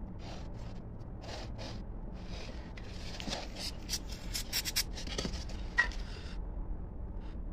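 A hand with a cloth rubbing and smoothing a wet cement surface: a run of short swishing scrapes that come thicker and faster in the middle, with one sharp click near the end.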